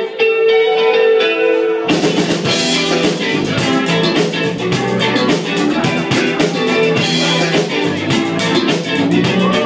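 Live rock band playing: an electric guitar rings out sustained notes alone, then about two seconds in the drums and bass guitar come in and the full band plays on.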